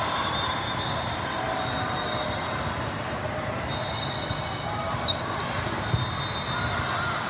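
Busy indoor volleyball hall: a steady wash of crowd chatter and echoing volleyball hits from many courts. Two sharp ball contacts, about five and six seconds in, as the rally on this court starts.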